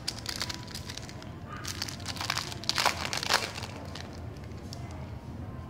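Foil booster-pack wrapper crinkling as it is torn open by hand. It comes as a run of rustles that is loudest between about two and three and a half seconds in, then dies down.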